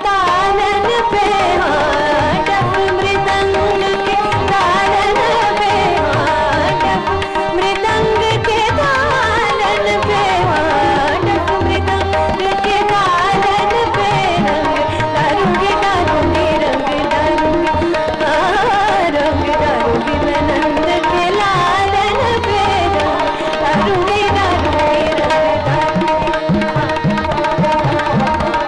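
Female Hindustani classical vocalist singing a hori thumri in raga Kafi, with ornamented, sliding melodic phrases over a tanpura drone, accompanied by tabla whose low bass strokes come and go.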